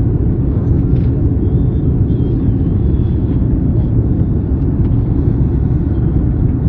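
Steady low rumble of engine and airflow noise heard inside the passenger cabin of an Airbus A310 on landing approach, flaps extended.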